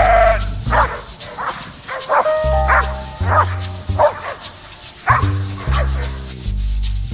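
Dog barking sharply and repeatedly, about eight barks at roughly one every two-thirds of a second, at a helper in a bite suit during protection training; the barking stops about five seconds in. Background music with sustained low notes plays throughout.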